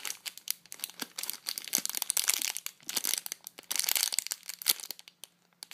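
A clear plastic bag around a squishy toy crinkles as hands turn and handle it, in quick irregular crackles that stop shortly before the end.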